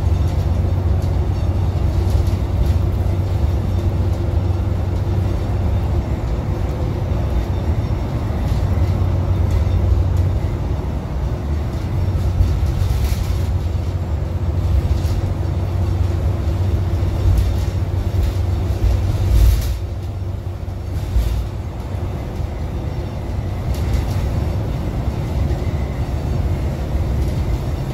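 Cummins ISM diesel engine and Allison B500R transmission of a Neoplan AN440 transit bus cruising at highway speed, heard inside the cabin: a steady low drone with road noise, a faint steady transmission whine and occasional rattles. The drone eases off briefly about twenty seconds in, then picks up again.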